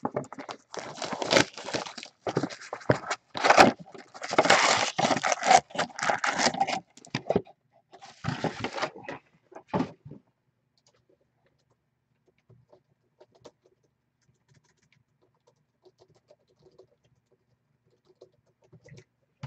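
Packaging of a sealed box of trading cards being crinkled, torn and scraped open by hand, in dense bursts for about the first ten seconds, then only faint scattered rustles.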